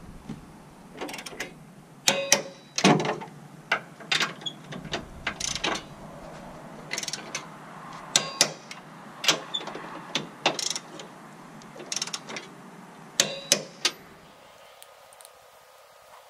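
Hand ratchet wrench clicking in short, irregular runs of strokes as it tightens the mounting bolts of a tow hitch.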